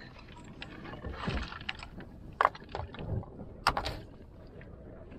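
Flat slate stones scraping and clacking against each other as they are lifted off the top of a dry-stone wall and passed down by hand, with a few sharp stone-on-stone knocks, the loudest about two and a half seconds in and another a little over a second later.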